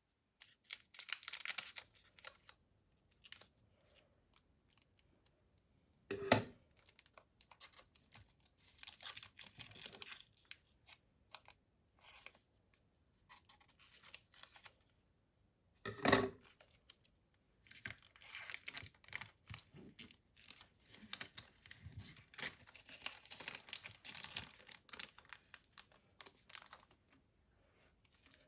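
Packaging of a trading-card collection box being opened and handled: irregular rustling and tearing, with two sharp knocks about six and sixteen seconds in.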